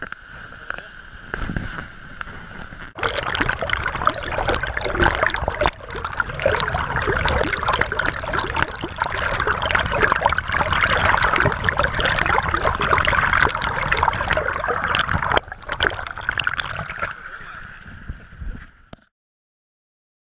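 Stream water rushing and gurgling loud and close around a camera held under the surface, full of small clicks and splashes. It swells suddenly about three seconds in, after a steadier, quieter run of the stream, and eases off again near the end.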